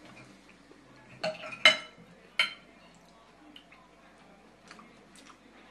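Cutlery clinking and scraping on ceramic plates during a meal: a few sharp, ringing clinks between about one and two and a half seconds in, the loudest near the middle, then lighter ticks.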